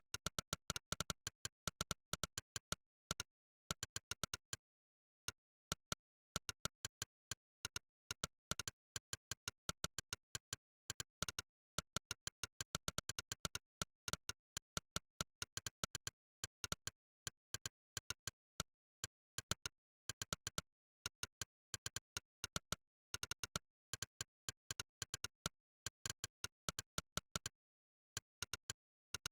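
Monkeytype's "click" keypress sound effect, one short sharp click per keystroke at an uneven typing pace of several a second, with dead silence between clicks and a few short pauses.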